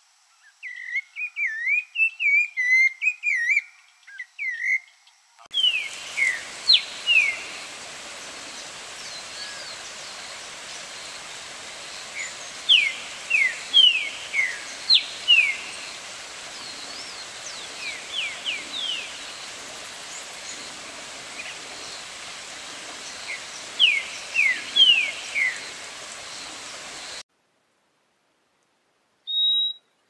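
Rufous-bellied thrush (sabiá-laranjeira) singing a warbling phrase for about five seconds. A green-winged saltator (trinca-ferro) follows, singing groups of sharp falling whistles over a steady background hiss, and stops about 27 seconds in. A single short high note comes near the end.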